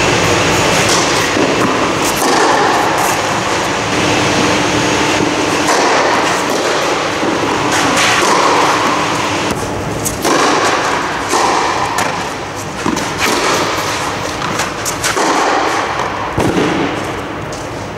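Tennis balls struck by rackets in a rally on an indoor clay court, sharp hits every second or two, with shoes scuffing on the clay, over a steady loud hiss.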